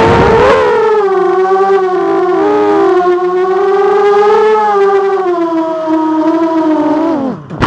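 Racing quadcopter motors whining at a high pitch that wavers up and down with the throttle, with two close tones beating against each other for a moment. Near the end the pitch drops steeply and the motors cut off, followed by a few short clicks.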